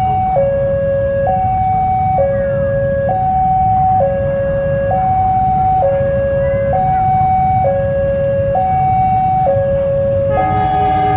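Level-crossing warning alarm sounding a steady two-tone high-low signal, each tone held just under a second, over a low rumble. About ten seconds in, the approaching diesel locomotive's horn joins as a chord of several tones.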